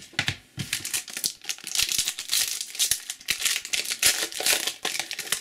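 Plastic wrapper of a trading-card pack being torn open and crinkled in the hands, a continuous irregular crackling with small sharp snaps.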